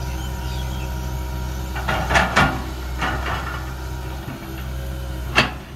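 Komatsu PC200 excavator's six-cylinder diesel running steadily under hydraulic load while the bucket digs into a termite mound. Sharp knocks and clanks come from the bucket and arm: a quick run of three about two seconds in, a few more around three seconds, and a single loud one near the end.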